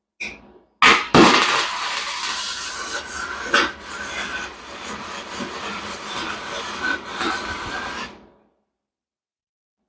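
Electric welding arc crackling steadily for about seven seconds after two sharp starts, tacking a motorcycle engine mount to the frame, then cutting off.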